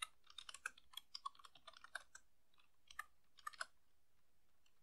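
Faint typing on a computer keyboard: a quick run of keystrokes for about two seconds, then two short clusters of keystrokes about three and three and a half seconds in, as a command is typed.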